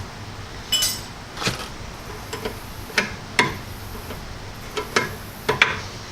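Sharp metallic clinks and taps of steel brake parts and tools being handled, about seven irregular strikes, the first with a brief ringing.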